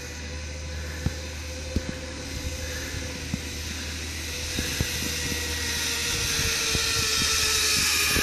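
Zipline trolley pulleys running along the steel cable: a steady whirring hum with a hiss that grows louder as the rider comes closer, its pitch sagging slightly near the end.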